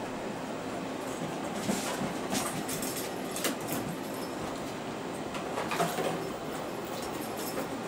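Bengal kittens playing on a hard tile floor: scattered knocks and clatters from toys and paws, the loudest a little before six seconds in, over a steady background hiss.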